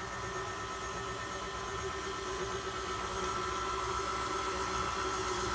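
KitchenAid stand mixer running steadily on its lowest speed, its motor giving a hum with a steady higher whine as the beater turns through donut batter.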